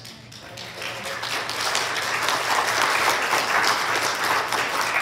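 Congregation applauding: many people clapping together, swelling over the first couple of seconds, holding, then starting to fade near the end.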